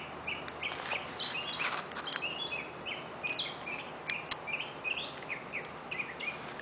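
Songbirds chirping: a steady run of short chirps, each sliding down in pitch, over faint outdoor background noise, with a few faint ticks.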